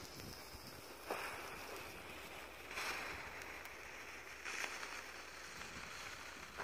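Weco silver rain hand-held sparkler fountain burning with a faint, steady fizzing hiss as it sprays sparks, swelling louder briefly three times.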